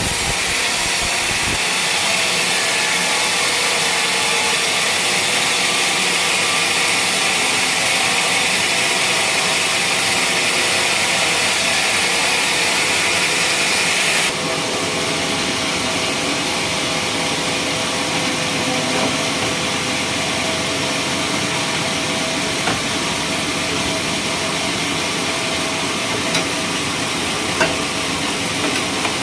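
Machine saw at a sawmill running and cutting through a teak beam, a steady hiss over the motor. The sound changes abruptly about halfway, and a few light clicks come near the end.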